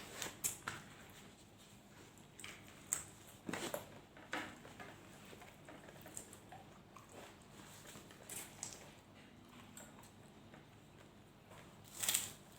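Close-up eating sounds of someone chewing grilled chicken: scattered wet smacks and clicks, irregularly spaced, with the loudest one near the end.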